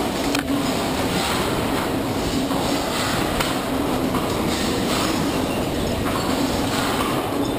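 Continuous loud rumbling and rattling of a full-scale test building and its furnishings and shelving shaking violently on a shake table, driven by a replayed earthquake record, with a steady low hum underneath.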